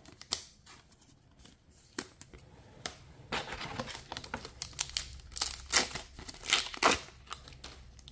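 Foil trading-card booster pack wrapper crinkling and being torn open. A few light clicks come first, then from about three seconds in dense crinkling with sharp rips, loudest about five to seven seconds in.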